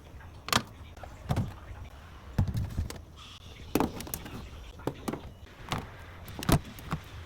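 Items and plastic containers being handled and set down in a refrigerator: a series of irregular knocks and clicks, roughly one a second.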